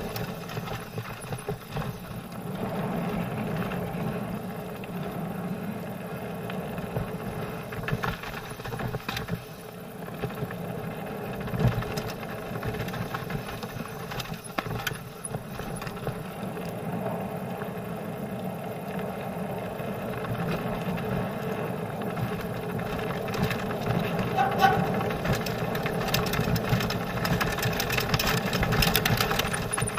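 Mountain bike riding down a dirt and gravel trail: a steady rumble of tyres and wind, with frequent clatters and knocks as the bike goes over stones and bumps.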